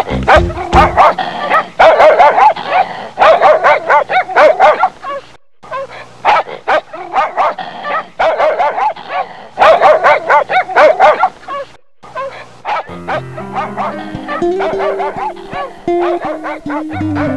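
A dog barking in quick, excited runs over background music; after about twelve seconds the barking thins out and a tune with bass notes takes over.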